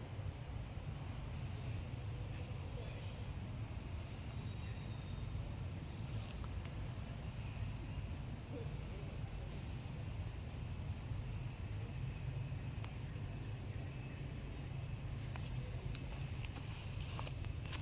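Outdoor ambience: a steady low rumble with a short, high, rising chirp repeating about once a second, and a few sharp ticks near the end.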